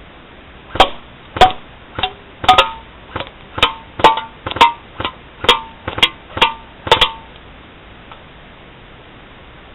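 CYMA AK-47 airsoft electric rifle firing single shots on semi-automatic, about fourteen in a row at an uneven pace of roughly two a second, several with a short metallic ring; the shots stop about seven seconds in.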